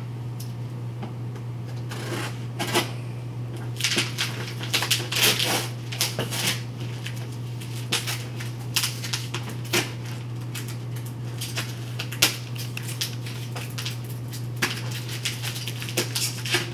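A box and its packaging being handled and opened: irregular rustles, scrapes and sharp clicks, over a steady low hum.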